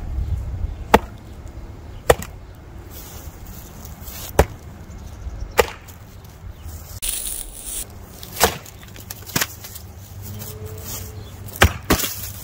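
Double bit axe chopping into a small log on a wooden stump: a series of about nine sharp chops, unevenly spaced a second or two apart.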